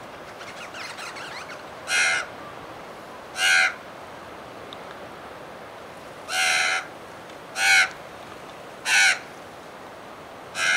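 A bird giving harsh, crow-like caws: about six short calls spaced irregularly, each under half a second.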